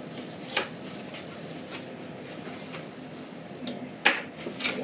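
A few short clicks and taps from a small black plastic holder being handled and laid on a tabletop. The loudest comes about four seconds in as it is set down, over steady background noise.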